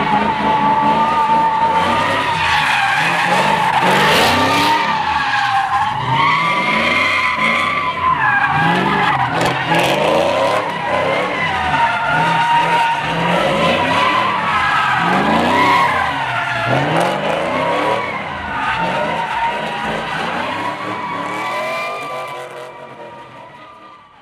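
Car tires squealing continuously as a car spins doughnuts, with the engine revving up and down over and over; the sound fades out near the end.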